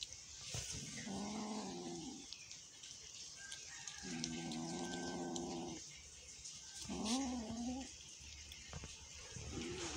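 Domestic cat growling over food it shares with another cat: four drawn-out growling moans, the second long and steady, the third wavering in pitch, the last starting near the end. Light clicks of eating from a paper wrapper fall in between.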